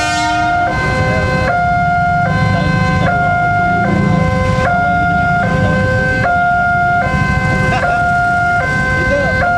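Railway level-crossing warning alarm sounding a continuous two-tone electronic hi-lo signal, switching pitch about every 0.8 seconds, warning that the barrier is down for an approaching train. Waiting motorcycle engines run underneath.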